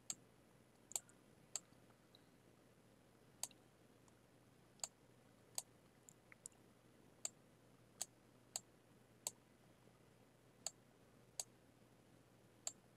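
Computer mouse button clicking: about fourteen short, sharp clicks at irregular intervals, roughly one a second.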